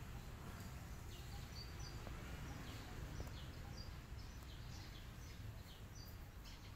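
Small birds chirping in the background, short high falling chirps about twice a second, over a faint steady low rumble of outdoor ambience.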